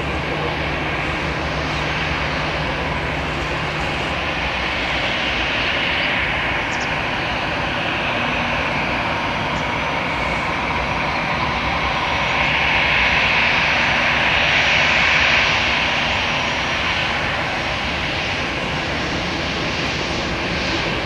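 Jet engines of an Airbus A319-111, CFM56 turbofans, running with a steady roar that swells to its loudest about two-thirds of the way through, then eases slightly.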